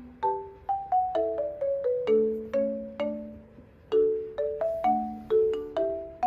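Background music of struck, mallet-like notes and small chords, about two a second, each ringing briefly and fading.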